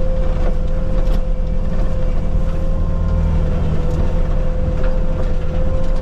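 Bobcat T750 compact track loader running the disc forestry mulcher: steady diesel engine rumble under a constant high whine, with a few sharp knocks.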